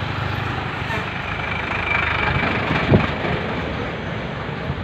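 Street traffic: motor vehicles running and passing on a road in a steady rumble, with one short thump about three seconds in.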